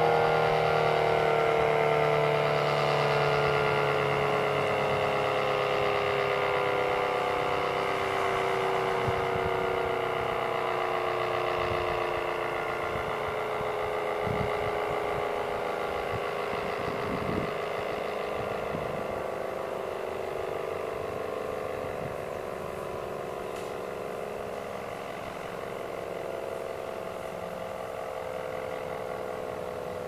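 ACA Cyclone 125 outdoor warning siren winding down at the end of its test. Its tone slides slowly lower in pitch and fades as the rotor coasts to a stop.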